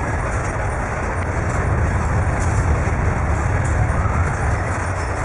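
Earthquake tremor shaking a building: a steady, heavy low rumble with a dense noisy rattle over it and faint ticks.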